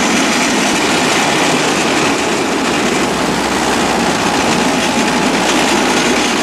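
Steel wheels of a small homemade rail draisine rolling steadily along the rails.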